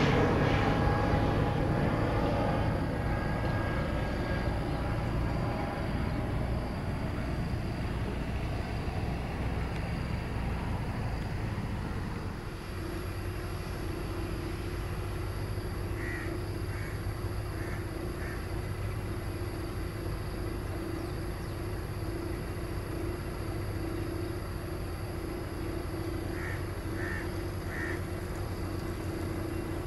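Jet airliner's engine noise fading as it climbs away after take-off, then a steady distant rumble with a low hum. Midway and near the end a bird calls in two short runs of three or four calls.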